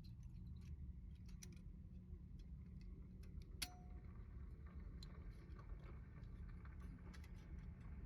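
Light scattered clicks and one sharper metal clink that rings briefly, about three and a half seconds in, as of small metal camp gear being handled, over a low wind rumble on the microphone.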